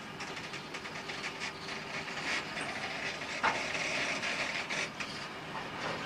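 Freight train's open-top coal cars rolling past: a steady rumble of steel wheels on rail, with scattered clicks and knocks as the wheels cross the rail joints, one sharper knock about three and a half seconds in.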